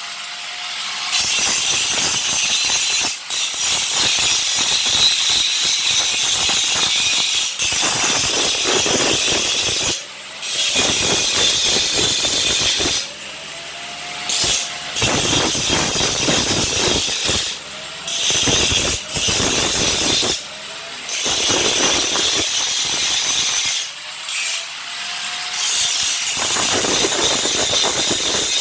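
Angle grinder grinding down the welds on a steel gate: a loud, harsh grinding noise broken by short pauses every few seconds, with a rising whine at several of the pauses.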